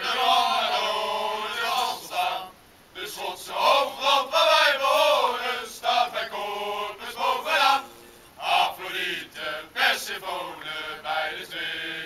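A group of men singing a song together, chant-like, in phrases with short pauses about two and a half seconds in and again around eight seconds.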